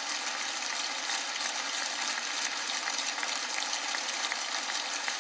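Large audience applauding steadily: a dense, even clatter of many hands clapping.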